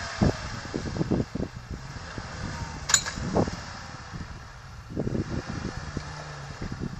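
UAZ off-roader's engine running steadily at a distance as it pushes through deep snow, with irregular low thumps on the microphone and one sharp click about three seconds in.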